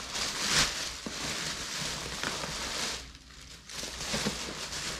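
Plastic packaging and bags rustling and crinkling as items are handled, with a short lull about three seconds in.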